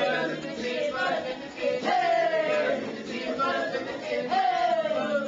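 Voices singing in a song, holding long notes that slide down in pitch three times.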